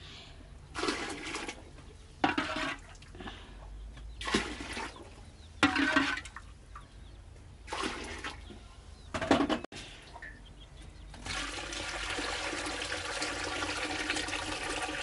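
Water in the metal cooling pot on top of a rice-spirit still: a few short separate sloshes and splashes as the heated water is scooped out, then from about eleven seconds in a steady stream of cold water poured into the pot. Swapping the hot water for cold keeps the still's vapour condensing into spirit.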